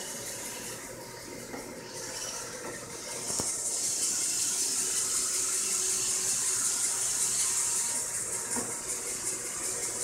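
Roomba robot vacuum running, a steady whirring hiss that gets louder about three seconds in and eases a little near the end.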